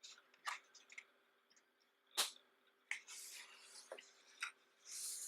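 Pages of a thick photobook being handled and turned: scattered light taps and clicks, the sharpest just over two seconds in, and two brief papery swishes, one around three seconds in and one near the end.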